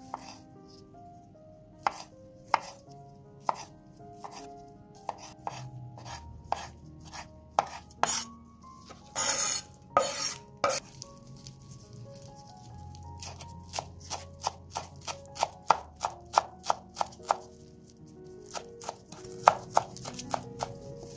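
Chef's knife cutting through tomatoes and then flat-leaf parsley on a wooden cutting board: sharp knocks of the blade on the board, scattered at first and then a quicker run of about three chops a second in the second half. A longer rustle comes about nine seconds in.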